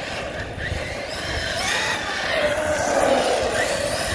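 Arrma Kraton 6S RC truck's brushless electric motor whining, its pitch rising and falling as the truck speeds up and slows, over a steady rushing noise.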